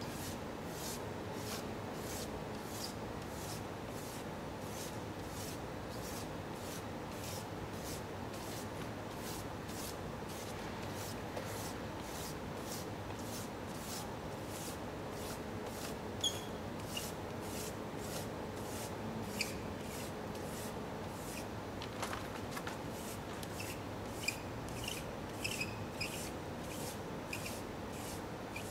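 Paper being rubbed with a dark drawing stick against raised lettering on a stone wall: steady, scratchy back-and-forth strokes, close to two a second. A few sharp clicks come in the second half.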